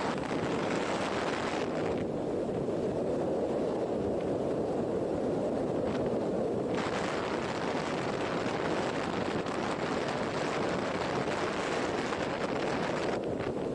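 Riding noise from a moving motorcycle: steady wind rush over the microphone mixed with engine and road noise. The hiss turns duller for a few seconds, from about two seconds in to about seven.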